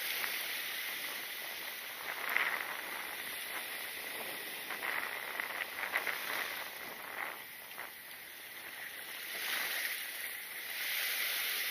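Sea water washing against shore rocks: a steady hiss of surf that swells and eases, with a few short clicks and knocks in the middle.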